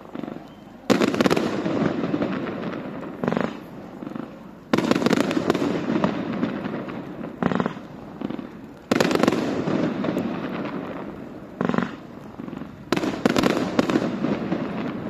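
Fireworks display going off: a sudden loud bang about every four seconds, each trailing off over a few seconds of crackle and echo, with shorter single pops in between and a quick triple bang near the end.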